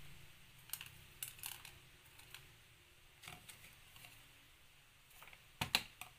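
Scattered light clicks and taps of thin wooden sticks and small plastic bottles being handled and set on a cutting mat, with a louder cluster of knocks near the end as the bottles are put down.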